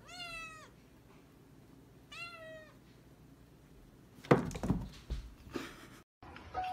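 A cat meowing twice, each a short call falling in pitch, then a few sharp thumps and knocks about four and a half seconds in as the cat clambers on a carpeted cat tree.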